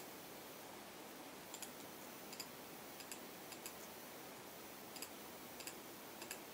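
Scattered faint clicks of a computer mouse and keyboard, about ten at irregular intervals, over a steady low hiss.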